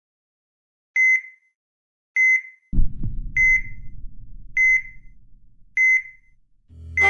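Patient monitor pulse beeps: five short, high-pitched electronic beeps about 1.2 seconds apart, each marking a heartbeat. A low background rumble comes in about three seconds in.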